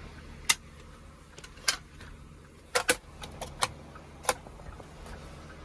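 Sharp plastic clicks from the dashboard of a 2008 Ford F-450 cab: the auxiliary switches being worked and a small dash compartment drawer pulled open, about nine separate clicks spread over four seconds. A low steady hum runs underneath.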